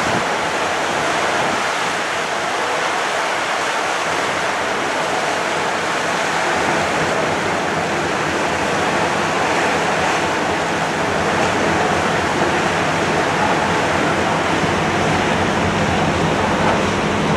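Steady rushing noise of wind and sea water from the deck of a ship under way, with a faint low hum underneath.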